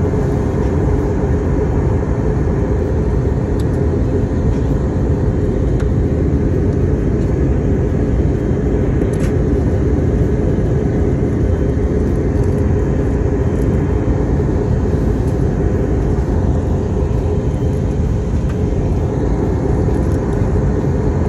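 Steady jet airliner cabin noise in flight: engine and airflow rumble heard from inside the cabin at a window seat.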